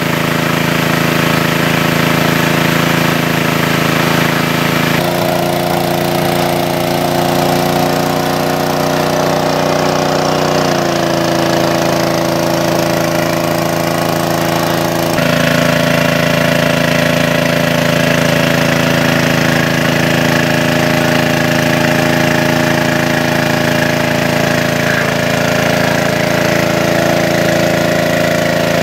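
Engine of a large-capacity water pump running steadily at a constant drone, its pitch and tone shifting abruptly about five, eleven and fifteen seconds in.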